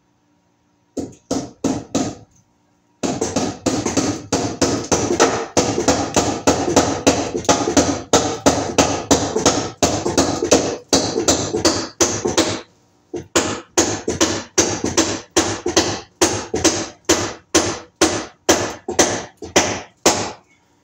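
Hammer driving nails into a wooden mounting board overhead, a few blows and then a long run of quick, steady strikes, about three or four a second, broken by one short pause.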